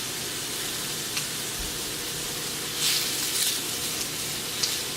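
Sausage patties frying in a pan: a steady sizzle, louder for a moment about three seconds in.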